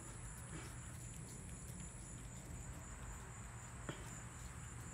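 A cat eating watermelon, making faint, small chewing and licking sounds over a steady low background hum, with one small click about four seconds in.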